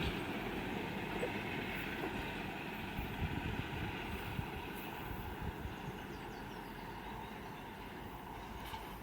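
ADM-1 diesel motor railcars running on past and moving away, a steady rolling and engine noise that slowly fades. A few faint wheel knocks come in the first few seconds.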